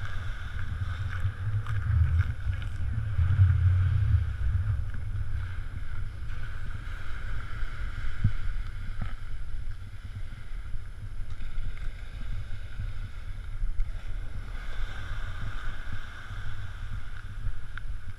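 Wind buffeting the microphone with a heavy low rumble, strongest in the first few seconds, over the steady wash of surf on a beach.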